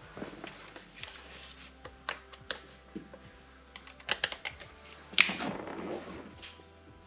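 Scattered clicks and knocks of tools and small hardware being picked up and handled on a boat's dash, the loudest a sharp knock about five seconds in.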